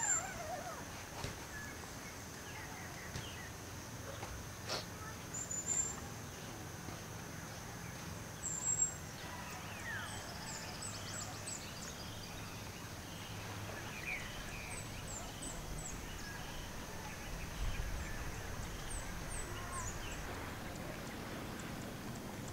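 Morning ambience of birds chirping and calling here and there, over a steady thin high tone and a faint low hum, with a couple of brief clicks in the first few seconds.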